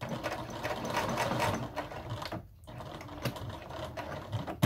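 Domestic electric sewing machine running, its needle stitching rapidly through layered fabric as a seam is top-stitched. It stops briefly about halfway through, then starts again.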